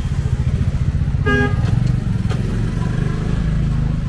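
Street traffic: a vehicle engine running close by with a steady low pulse, and one short horn toot about a second in.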